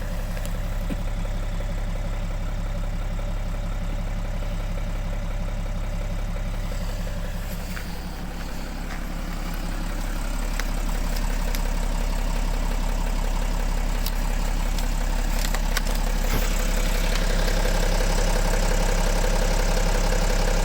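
BMW X3's M57 diesel straight-six idling with a knock that the owner cannot place: a fuel injector, the crankshaft damper pulley, or a connecting rod. The sound dips briefly a little way in, then comes back somewhat louder.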